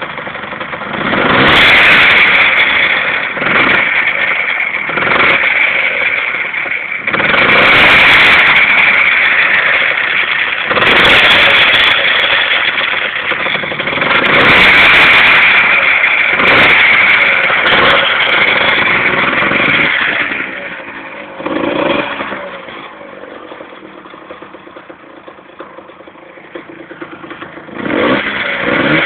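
Yamaha DT125R two-stroke single-cylinder motorcycle engine being blipped repeatedly. There are about seven throttle blips, then it settles to a quieter idle and revs once more near the end. It is run to show a small engine noise that worries the owner.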